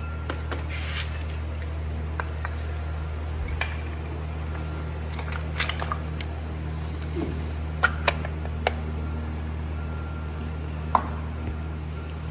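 Scattered metallic clicks and clinks of hand tools being worked at a tractor's engine oil filter, over a steady low hum.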